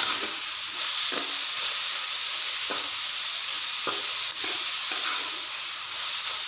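Chopped onions, green chillies and curry leaves sizzling in oil in a kadai as they sauté, with a ladle scraping across the pan several times as they are stirred.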